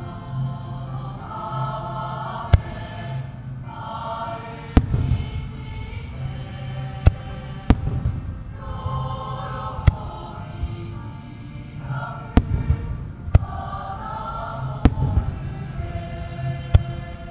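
Aerial fireworks shells banging sharply about nine times, a second or more apart at irregular intervals. Music plays underneath them throughout.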